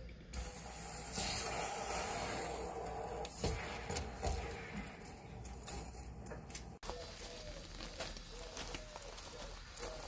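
Water rushing out through an electric water heater's brass drain valve into a garden hose as the tank is drained and flushed: a loud hissing rush that starts abruptly just after the start, then cuts off briefly about two-thirds through and goes on quieter.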